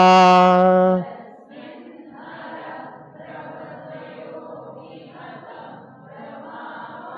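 A man chanting a Sanskrit stotra verse holds its last syllable for about a second and stops. Then a softer group of voices repeats the line in unison.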